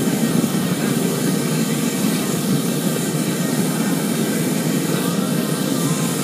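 Waste-oil burner firing a foundry furnace on used cooking oil, running with a steady, low rushing sound.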